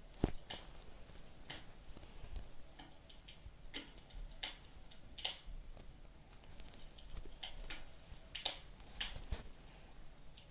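Wood fire crackling: irregular sharp pops and snaps, one stronger pop just after the start.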